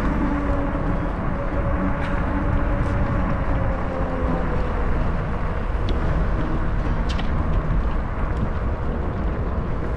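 Wind buffeting the microphone and tyre-on-road noise from a moving bicycle. A faint engine hum fades out over the first few seconds, and a few light clicks and rattles come from the bike.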